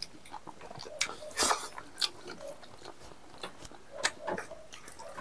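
Several people eating a meal by hand: scattered short chewing and lip-smacking sounds, with light clicks of fingers and food against plastic plates.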